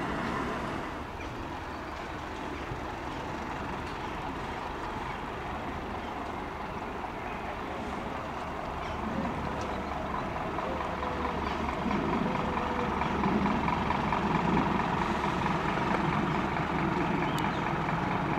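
Scania fire engine's diesel engine running steadily with a low rumble, growing louder about halfway through.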